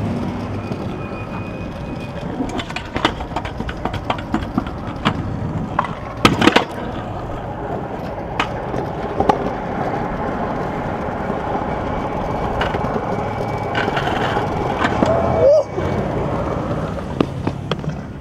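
Stunt scooter wheels rolling on pavement with a steady rolling noise, broken by sharp clacks and knocks now and then, the loudest about six seconds in and again near fifteen seconds.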